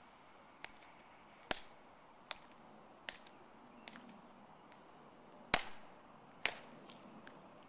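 Sharp, uneven clicks of ceremonial guards' metal-tapped dress shoes, heels striking and snapping together on stone pavement as they turn and march. The loudest click comes about five and a half seconds in.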